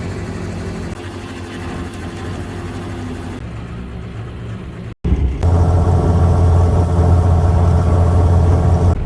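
Fishing boat's engine running steadily, in two edited stretches: a moderate hum, then from about five seconds in a much louder, deeper steady hum.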